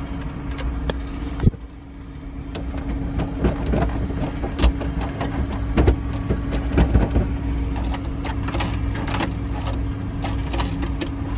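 Clicks and small metallic rattles of a car key being turned and worked in a Lotus's ignition, with keys jangling, over a steady background hum. The car gives no response: as the owner suspects, the battery might be dead, with no juice at all.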